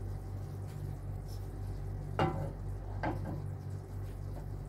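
Wooden spatula stirring a thick caramelized sugar-and-butter mixture in a frying pan, with two knocks of the spatula against the pan about two and three seconds in. A steady low hum runs underneath.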